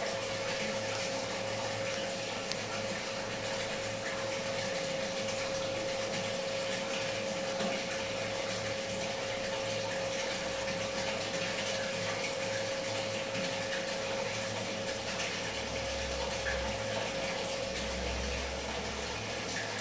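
Aquarium filter pump running: a steady rush of moving water with a constant hum.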